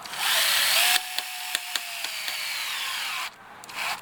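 Power drill/driver driving screws to fasten a reinforcing clip onto a cracked mounting point of a plastic vehicle body shell. A loud grinding burst lasts about a second. Then the motor runs steadily with a slightly sagging whine and a few clicks, and cuts off about three seconds in, with a short burst near the end.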